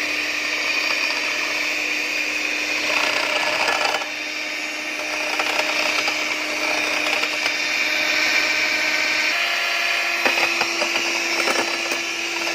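Electric hand mixer running steadily, its beaters whisking egg whites into a froth in a bowl. The motor's hum steps up slightly in pitch about nine seconds in, and a few clicks come near the end.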